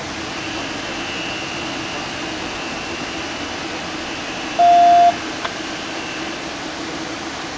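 A single electronic beep lasting about half a second, a little past the middle, over a steady background hum. A faint click follows shortly after.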